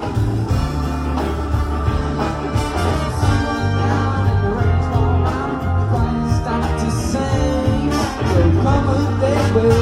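Band music with a steady walking bass line and a singing voice.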